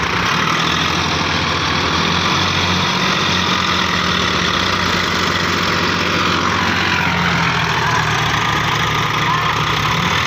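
Two tractor diesel engines, a Sonalika DI-35 and a second tractor hitched in tandem, running steadily and loud under load as they try to pull a paddy-laden trolley whose tyres have sunk into soft ground.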